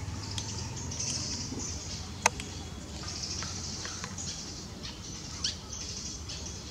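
Outdoor ambience of short high chirps and squeaks over a steady low rumble, with one sharp click a little over two seconds in and a falling squeak about five and a half seconds in.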